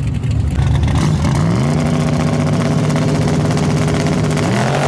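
Fox-body Mustang drag car's engine revving up about a second and a half in and holding a steady high rpm, with a rapid crackle from the exhaust, after its burnout. Near the end the revs climb again as the car launches.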